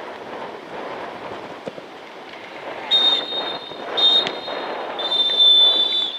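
Referee's whistle blown in two short blasts and then one long blast, the signal that ends the match.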